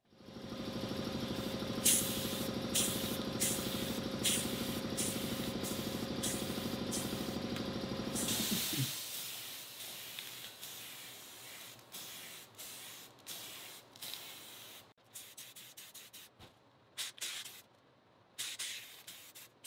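HVLP spray gun hissing as it sprays paint in short passes onto a steel wheel. Over the first nine or so seconds a motor runs steadily underneath and then stops. After that the spray comes in separate short bursts of hiss as the trigger is pulled and released.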